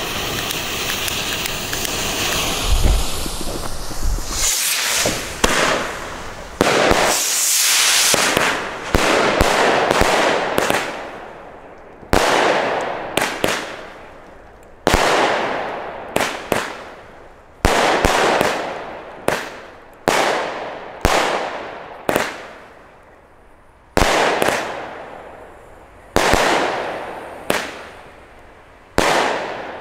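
The fuse of a Poison consumer fireworks battery (cake) hisses and sputters for the first few seconds. The battery then fires shot after shot, each a sudden launch bang that fades out in a hiss, about one every one to two seconds.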